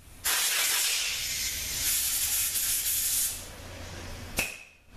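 A pressurized jet hissing loudly for about three seconds, then more softly for about another second, ending with a sharp click.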